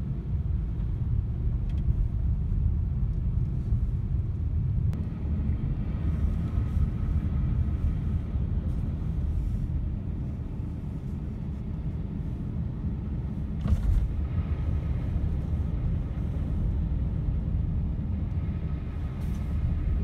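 Steady low rumble of a car driving on a snow-covered highway, heard from inside the cabin. A brief louder noise about fourteen seconds in.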